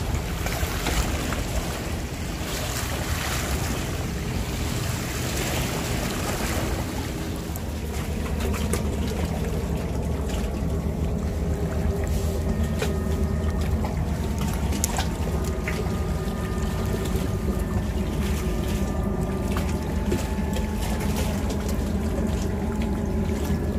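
Seaside ambience: wind on the microphone and sea water lapping against the breakwater rocks, over a low steady rumble.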